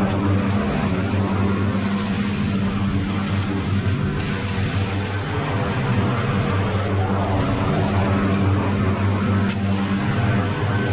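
Riding lawn mower engine running steadily with its deck cutting grass.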